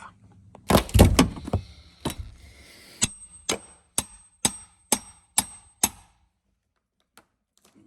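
Hammer blows on metal: a quick flurry of four or five hits, then seven evenly spaced strikes about two a second with a high metallic ring. This is the work of breaking the sealant that holds the rooftop air conditioner down.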